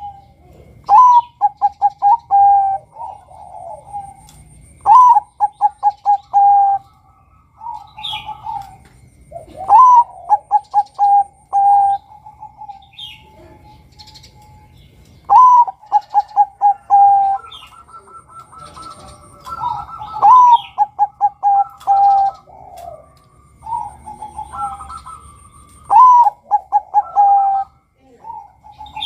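Male zebra dove (Bangkok-type perkutut) cooing its song. Each phrase is a rising opening note, a quick run of short coos, then a longer held coo, repeated about six times every four to six seconds.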